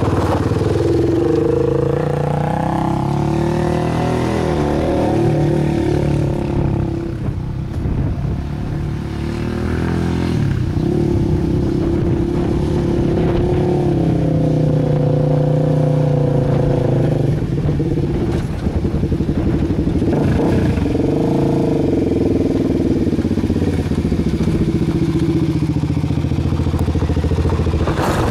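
Sport quad's engine revving up and down over and over as it is ridden, pitch rising and falling with the throttle as the rider pulls wheelies.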